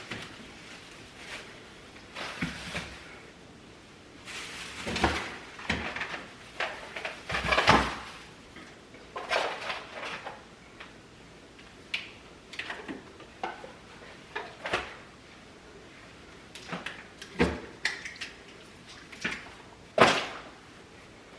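Jars, bottles and food containers being taken off a refrigerator shelf and set down: a string of irregular knocks, clatters and bumps, several of them sharper and louder about five, seven and a half, seventeen and twenty seconds in.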